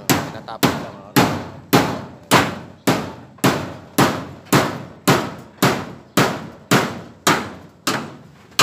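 Steady hammering, about two blows a second, nailing galvanized iron sheets onto a wooden fence frame; each blow rings briefly in the metal sheet.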